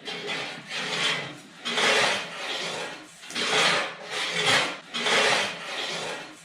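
Hand saw cutting through wood in steady back-and-forth strokes, about eight rasping strokes alternating louder and softer.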